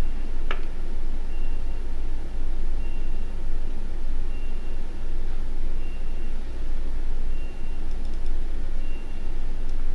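Steady low rumble with a short high-pitched beep repeating about every second and a half, and one sharp click about half a second in.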